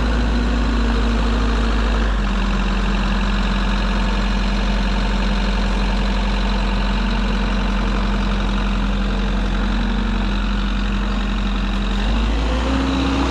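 Engine of a piece of heavy equipment running steadily. Its pitch drops a little about two seconds in and rises again near the end, as the engine speed changes.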